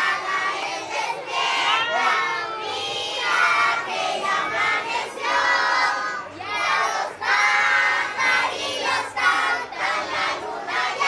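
A crowd of party guests, children among them, singing and shouting together, many voices at once.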